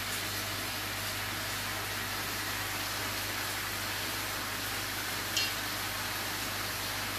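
Steady hiss with a low hum underneath, and one brief high-pitched clink about five seconds in.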